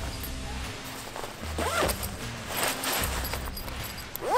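Zipper on a black fabric parachute carrying bag being pulled closed by hand in several short pulls, the loudest near the end.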